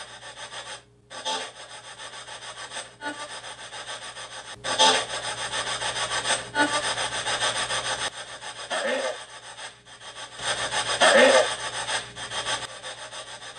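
Harsh static hiss, chopped into uneven bursts with a brief dropout about a second in, and two short voice-like sounds about nine and eleven seconds in.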